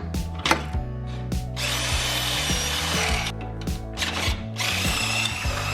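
Power drill boring holes through metal in two runs, the second starting about a second after the first stops, each with a high whine over a hiss. Background music with a steady beat plays throughout.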